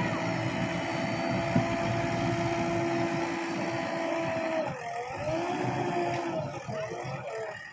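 JCB 3DX backhoe loader's diesel engine running under load as the front loader bucket pushes into a pile of soil and lifts. The engine note holds steady, sags about five seconds in, then picks up again.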